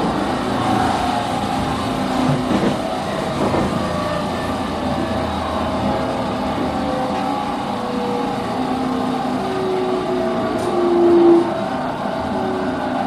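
Running noise of a JR 209-500 series EMU motor car (MoHa 208-528, IGBT-VVVF retrofit) from over its bogie: rumble with several whining tones that slowly slide down in pitch, loudest about eleven seconds in. The whine is the car's abnormal noise, which the uploader takes for a mechanical fault, most likely a bearing, not an electrical one.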